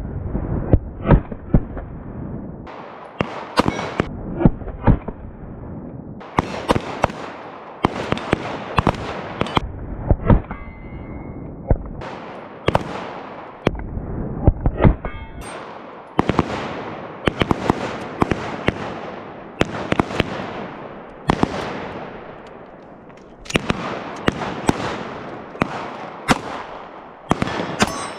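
Pistol gunfire: many single shots fired in irregular strings, some in quick runs, each shot ringing out in an echo.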